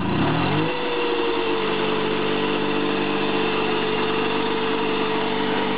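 Barkas EL-150 emergency generator's engine starting: it picks up speed for under a second, then settles into a steady run with a constant hum.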